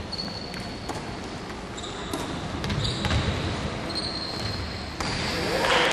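Basketball game on a hardwood court: the ball bouncing and sneakers squeaking in high, held tones, echoing in a large sports hall. A louder rush of noise comes in near the end.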